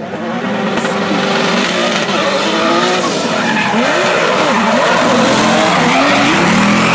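Two drift cars sliding through a bend in a tandem battle and coming past close by. Their engines rev up and down with wavering pitch over continuous tyre screech, growing louder over the first second and then staying loud.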